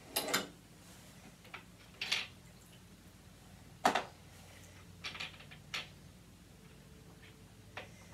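Scattered clacks and knocks of small hard objects being picked up and set down by hand, about seven in all, the loudest about four seconds in.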